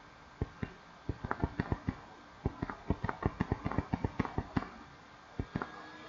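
Computer keyboard typing: a quick, uneven run of key clicks for about four seconds, a short pause, then two more keystrokes near the end.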